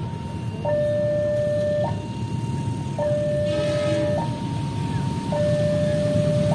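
Electronic two-tone warning alarm of a railway level crossing, alternating a higher and a lower note, each held a little over a second, as a train approaches. A low rumble from the approaching train runs underneath.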